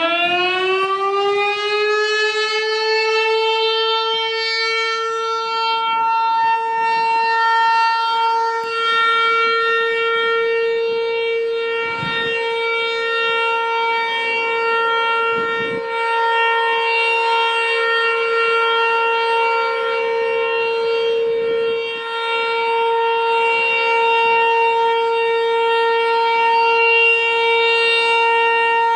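ASC T-128 electromechanical siren winding up, its pitch rising for the first couple of seconds and then holding one steady, loud tone.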